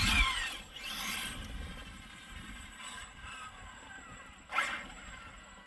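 Electric RC monster truck's brushless motor (Hobbywing 1250 kV on 8S) revving in short bursts, its whine gliding up and down in pitch as the truck accelerates and lets off, with scrapes of tyres on the ground.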